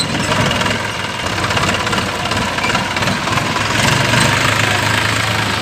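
New Holland farm tractor's diesel engine running at low speed as it drives by close, towing a trolley. It gets a little louder about four seconds in as it passes nearest.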